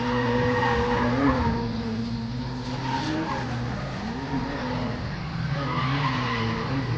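Drift car engine running hard, its revs rising and dipping several times, over continuous tyre skidding, heard from inside the cabin during a tandem drift.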